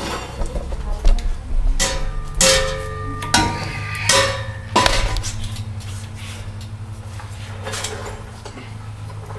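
Steel exhaust pipe clanking and ringing as it is worked into a rubber hanger grommet under a pickup truck. There are several sharp metal knocks in the first five seconds, then only a steady low hum.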